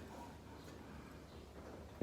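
Faint steady background noise with a low hum, and no distinct tool strokes or impacts.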